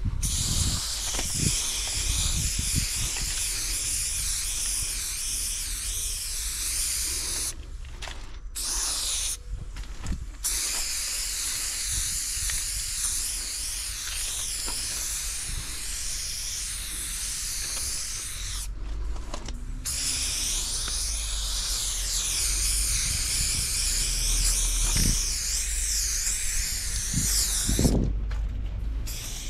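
Aerosol spray paint can spraying in long, steady hisses, broken by about four short pauses.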